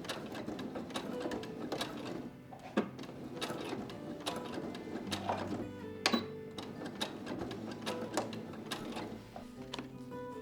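Home sewing machine stitching, a dense run of sharp needle clicks, over soft background music.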